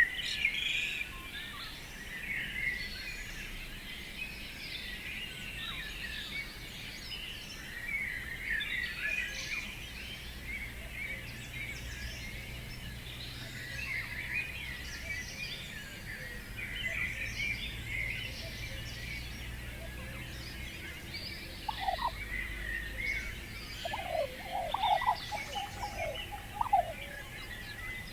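Many birds chirping continuously in a dense chorus. A few short, lower calls from a larger bird come in about three-quarters of the way through.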